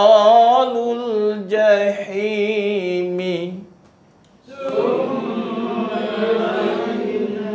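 A man chanting the Quran verse 'thumma innahum lasalul jahim' slowly and melodically, each syllable drawn out. After a short pause about four and a half seconds in, a group of voices takes up the same verse together in unison.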